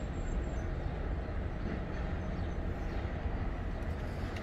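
A steady low rumble of vehicle noise, with no distinct events.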